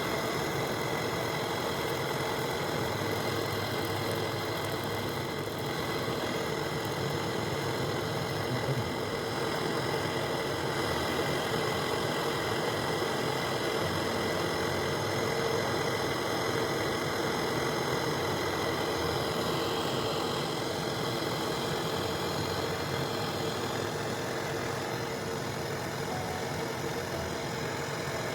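Hermetic refrigeration compressor of a bottle cooler running with the suction line cut open, flushing the system: a steady motor hum over a continuous hiss of air.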